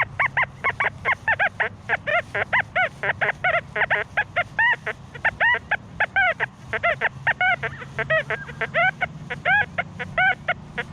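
XP Deus II metal detector's audio chirping rapidly, about four or five short tones a second, each rising and falling in pitch as the coil passes over buried iron, which the detectorist takes for a big pipe.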